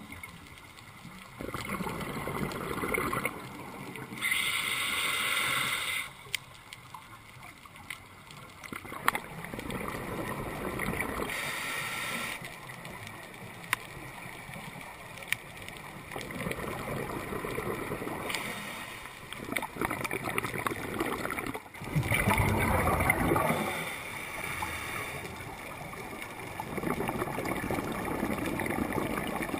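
Scuba diver breathing underwater through a regulator: a hiss on each inhalation and a bubbling gurgle of exhaled air, swelling and fading every few seconds.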